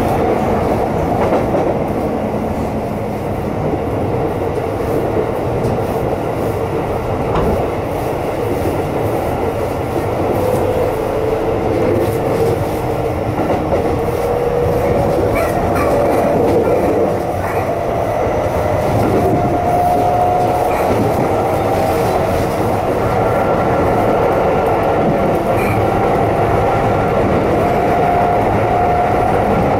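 Keisei Electric Railway electric train running, heard from inside the passenger car: a steady rumble of wheels on rails under a traction-motor whine that climbs slowly in pitch.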